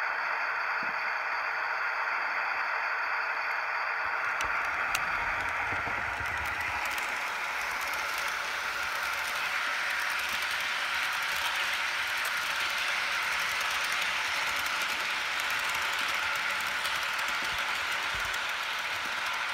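HO-scale model freight train, a Jouef SNCF diesel locomotive pulling four-axle tarpaulin wagons and covered wagons, running past on the layout track with a steady rattle of wheels on rail.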